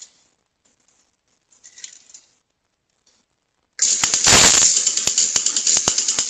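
Motion-activated lawn sprinkler firing: water spray hissing, with rapid irregular clicks, starting suddenly about four seconds in. Before it, only faint rustles.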